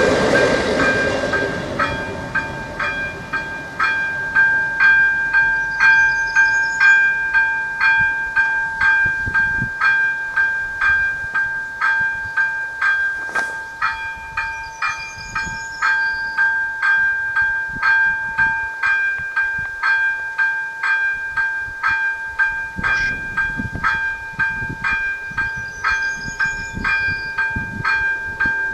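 Electronic level-crossing bell (AŽD ZV-02) ringing in even repeated two-tone strokes, about two a second, the crossing still in its warning state after the train has cleared. The rumble of the departing diesel railcar fades out in the first couple of seconds.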